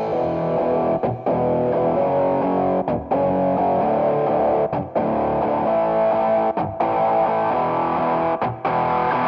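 Background rock music led by a distorted electric guitar holding sustained chords, broken by short gaps about every two seconds.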